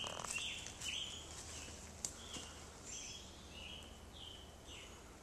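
A bird calling in a series of short, high chirps, roughly two a second with a gap in the middle, growing fainter toward the end.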